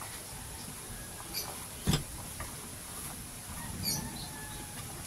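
Fabric seat of a folding camping chair rustling and scraping faintly as it is handled and turned over, with one sharp knock about two seconds in.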